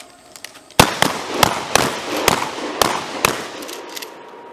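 Shotguns firing on a range as a line of shooters each fires a two-shot drill: about seven ragged, uneven shots in some two and a half seconds, each with a short echo.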